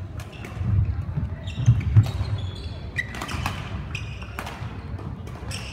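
Badminton play on an indoor court: several sharp racket strikes on the shuttlecock, short shoe squeaks on the court floor, and thudding footfalls.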